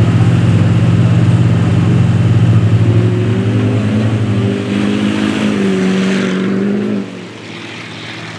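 Pickup truck engine running loud and steady, then rising in pitch as it revs up, before the sound drops away suddenly about seven seconds in.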